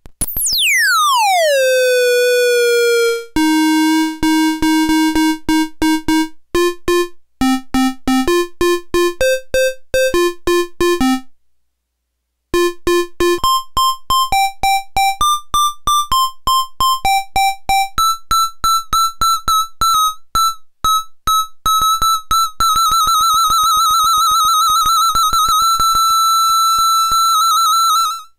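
Circuit-bent toy keyboard with a buzzy, overtone-rich tone. It opens with a note swooping down in pitch as the pitch knob is turned, then plays a run of short, clipped notes with clicks between them and a brief gap. Near the end it holds one high note with a fast warble.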